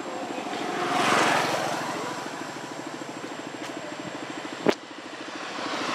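A motor vehicle engine runs with a steady fast throb. It swells in loudness about a second in as a vehicle passes on the road. Near the end there is a single sharp click.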